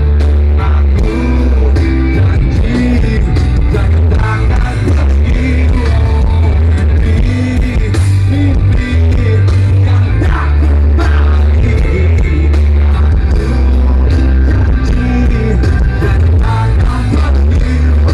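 Live rock band playing loud and steady, with heavy bass, electric guitar and singing.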